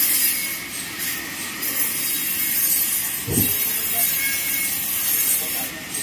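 Sawmill band saw running with a steady high hiss, with a short low thump about three seconds in.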